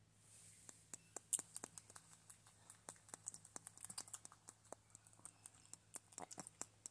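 Java macaque grooming a person's hair up close: a fast, irregular run of small clicks and crackles as it parts and picks through the strands.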